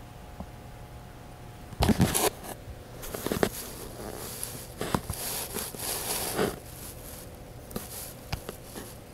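Handling noise from a handheld camera being moved about: a burst of knocks and rustling about two seconds in, then a few seconds of irregular scraping and rustling with scattered clicks.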